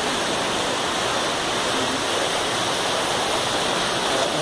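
Steady rush of falling water, as from an artificial waterfall, with no change in level.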